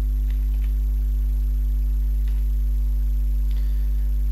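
Steady low electrical mains hum with a stack of overtones, carried on the recording, with a few faint keyboard clicks as a word is typed.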